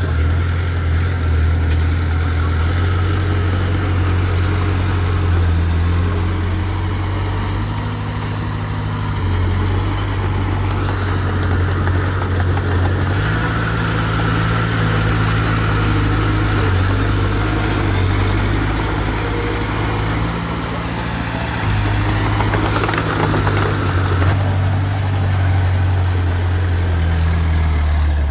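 Diesel engine of heavy earthmoving machinery running under load: a deep, steady engine drone whose pitch steps up and down several times as the machine works.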